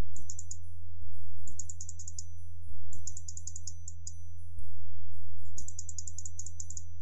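Computer keyboard typing in four quick bursts of rapid clicks, over a steady low electrical hum on the audio line.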